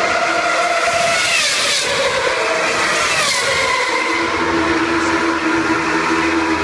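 Formula 1 cars' 2.4-litre V8 engines running at high revs as they pass on the circuit. The engine note falls in pitch as cars go by about a second and a half and three seconds in, then holds a steadier note.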